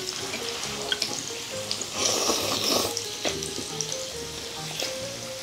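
Gopchang (grilled beef intestines) sizzling in fat on a tabletop grill pan, the hiss swelling for almost a second about two seconds in, with a few light clicks. Background music plays throughout.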